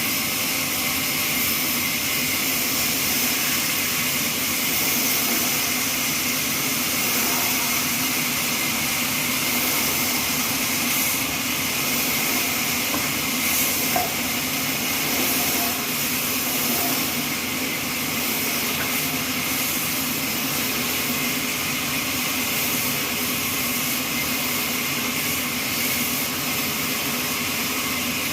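Horizontal trolley band sawmill running steadily, its band blade sawing through neem wood: a constant motor hum under a loud, hissing saw noise.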